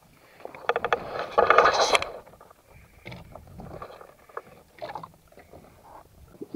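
A burst of rapid clicking and rattling lasting about a second and a half, followed by scattered fainter clicks and knocks.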